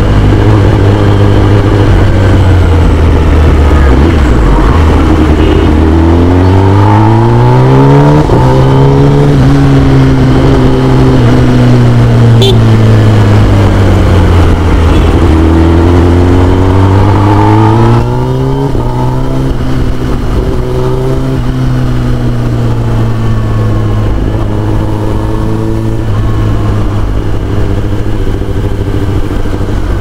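Kawasaki ZX-10R's inline-four engine through an Akrapovic full-system exhaust, running at steady mid revs. Its pitch climbs over a couple of seconds, holds, sinks and climbs again, and the sound gets a little quieter about two-thirds of the way through.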